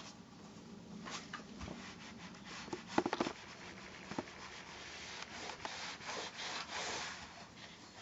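Small iron sliding and rubbing back and forth over cotton patchwork pieces on a padded pressing board, a quiet scraping swish that gets stronger after about five seconds, with a short patter of light clicks about three seconds in as the pieces are handled.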